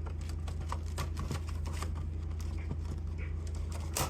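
Scattered light clicks and taps, like small objects being handled, over a steady low hum, with one sharper click near the end.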